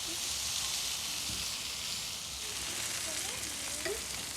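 Sausages and lamb sizzling on a barbecue grill: a steady hiss with a few small pops.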